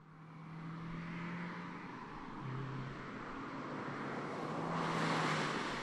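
Car driving on the road: a steady engine hum that drops briefly in pitch about two and a half seconds in, under road and wind noise that swells to its loudest about five seconds in.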